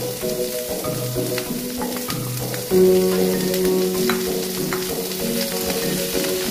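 Prawns sizzling in garlic butter in a frying pan, stirred with a wooden spatula that clicks and scrapes against the pan. Background music with held notes plays over it and gets louder a little under three seconds in.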